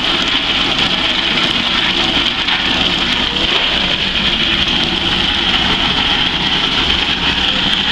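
Soybean dehulling machine running steadily, with a low motor hum under an even, loud rushing noise.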